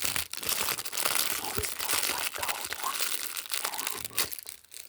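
Packaging crinkling as it is handled and opened, a dense, continuous rustle full of small crackles that dies away near the end.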